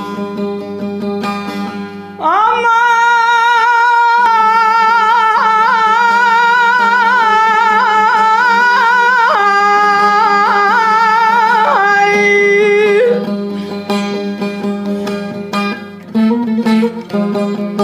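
Turkish uzun hava: a voice sings one long, free-rhythm line full of wavering ornaments from about two seconds in until about thirteen seconds, over plucked string notes and a steady low drone; the plucked instrument carries on alone afterwards.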